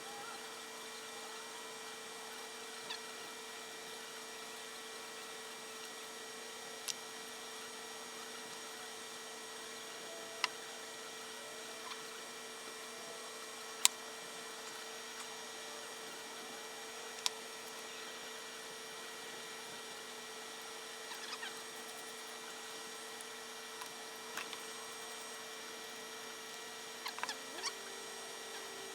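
Sharp, isolated clicks and taps of small metal parts and tools being handled, every few seconds and bunching into small clusters near the end, over a steady faint electrical hum.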